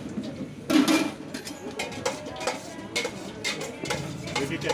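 Metal utensils clinking and scraping against steel bowls and a large aluminium cooking pot as food is dished out, a few separate sharp clinks at uneven intervals.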